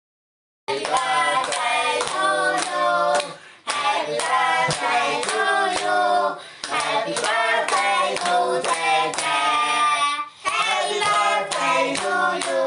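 A small group of women and children singing together with clapping in time, starting a moment in after a brief silence, with short breaks between lines.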